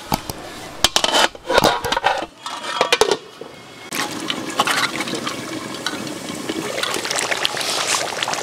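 Irregular wet splashes and clicks of liquid for the first three seconds or so. Then, about four seconds in, the steady crackling bubble of goose curry simmering in a large cooking pot.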